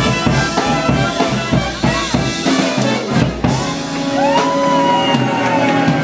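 Live band playing an up-tempo swing number with drums, without vocals at this point. A few seconds in, a long held note slides up and sustains over the band.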